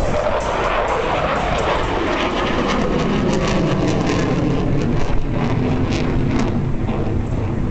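F-16 fighter jet engine noise, loud and steady, sinking in pitch as the jet climbs away, with sharp crackles between about two and six and a half seconds in.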